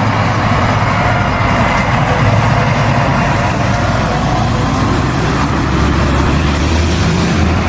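A steady engine-like running noise: a low hum under a broad hiss. It cuts in abruptly and holds an even level throughout.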